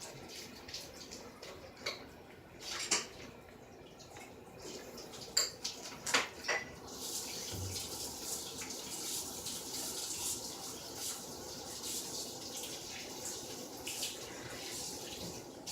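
A few knocks and clatters, then a tap running steadily from about six seconds in, as glue is washed off hands under the water.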